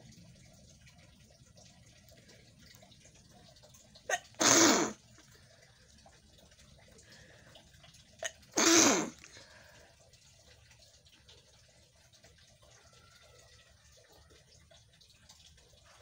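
A woman sneezing twice, about four seconds apart. Each sneeze is a sharp burst under a second long, with a brief sound just before it.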